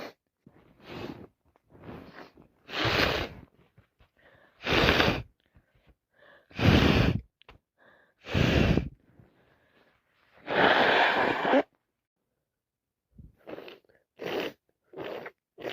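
A woman with a congested head cold sneezing over and over: small breaths at first, then a string of loud sneezes about two seconds apart, the last one drawn out. After a short pause comes a run of short, quick breaths.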